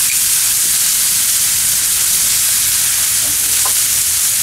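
Bison NY strip steaks searing in butter on a hot grill sear plate: a loud, steady sizzle.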